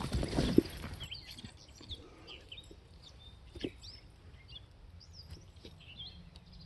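Birds chirping in scattered short calls, after a burst of scuffling noise in the first second, with a single thump a little past halfway.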